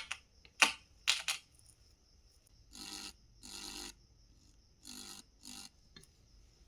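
A few faint clicks in the first second and a half, then four short scraping noises, over a faint steady high-pitched whine.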